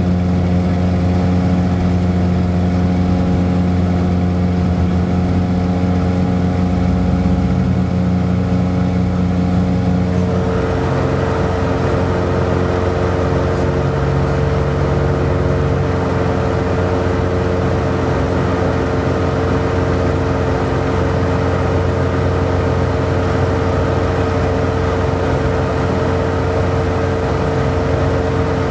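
Piper Seminole twin's engines and propellers droning steadily in the cabin. About ten seconds in the engine note changes and turns noisier, as with a change in power.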